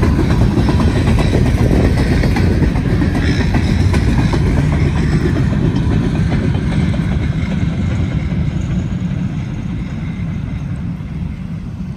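Freight train cars rolling past close by: a loud, dense rumble of steel wheels on rail with rapid clickety-clack, slowly easing off over the last few seconds.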